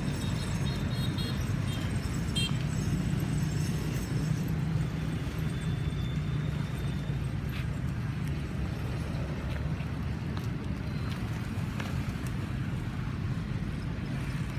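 Steady low rumble of road traffic, mostly motorbikes and cars, with a few faint high tones and clicks in the first few seconds.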